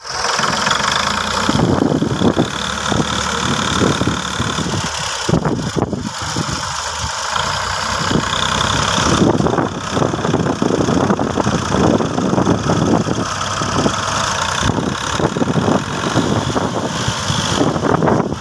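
Diesel engines of two Ford tractors, a 4600 and a 3600, running hard under load as they pull against each other on a chain, with a dense, steady diesel clatter.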